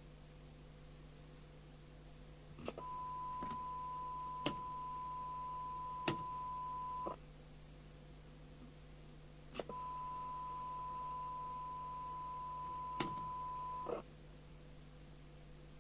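A steady test tone of about 1 kHz sounds twice, each time for about four seconds, starting and stopping with a sharp click as the handheld CB radio's transmit button is pressed and released. A few more switch clicks fall in between, over a faint steady hum from the bench equipment.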